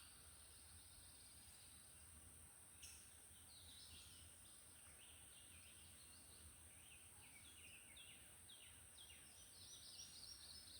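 Faint birdsong, a run of short downward-sliding chirps repeated over and over, against quiet outdoor background noise, with one faint tick about three seconds in.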